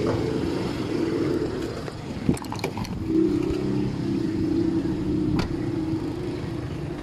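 A motor vehicle's engine running steadily with a low, even hum, and a few sharp clicks about two seconds in and another near five and a half seconds.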